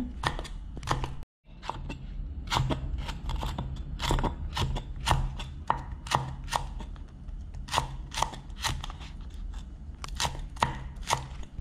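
Chef's knife slicing chili peppers into rings on a wooden cutting board: a steady run of sharp taps of the blade on the wood, about three a second, with a short break just over a second in.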